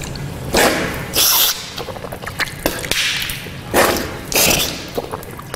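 Rinsing the mouth and nose from a cupped handful of tap water during wudu: splashing, water drawn into the mouth and sniffed up the nose, then blown out, heard as about five short hissing bursts over a thin stream running from the tap.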